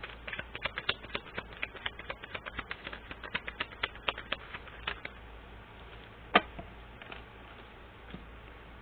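A deck of cards being shuffled: a quick run of light clicks, about seven a second, for about five seconds, then one sharper snap about six seconds in.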